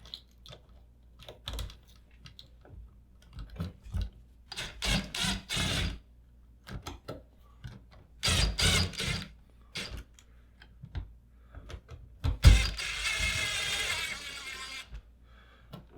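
Screwdriver turning the mounting screws of a wall switch into its electrical box: scattered clicks and ratchet-like rasping, in three runs, the last and longest starting about three-quarters through.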